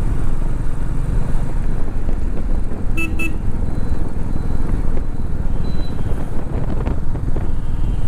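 Steady rumble of a motorcycle riding on the road, with wind and road noise. About three seconds in, a vehicle horn gives two short beeps.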